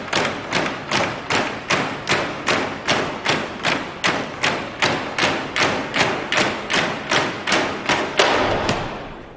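A crowd of prison inmates banging spoons in unison on the cafeteria tables and trays, a steady beat of about two and a half strikes a second with some shouting mixed in, fading out near the end. The banging is a protest that drowns out the warden.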